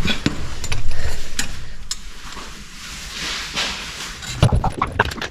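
Hand tools working on a motorcycle's rear axle adjusters: scattered metallic clicks and clinks, with a few sharp knocks near the end.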